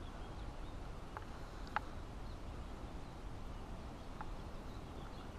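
Quiet outdoor ambience: a steady low rumble with three brief, faint high ticks, one about a second in, one near two seconds and one a little past four seconds.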